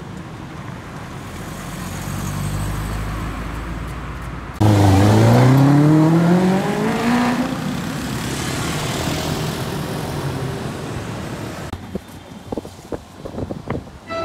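A car accelerating past, its engine note rising steadily in pitch for about three seconds before giving way to a hiss of tyre and road noise. A low engine rumble builds before it. Near the end there are a few short sharp knocks, and a horn toot begins right at the close.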